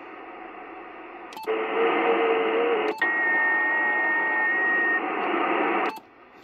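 Yaesu FT-920 HF transceiver's receiver putting out band-noise hiss while its bands are switched. A sharp click comes with each of three band changes. The hiss is faint at first and louder after the first click, with a few steady whistling tones of signals mixed in. It drops quieter after the last click.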